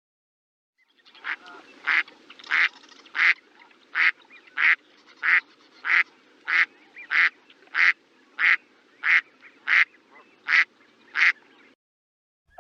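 A duck quacking in a long, steady series of about sixteen short, evenly spaced quacks, roughly one and a half a second, starting about a second in over a faint background hiss.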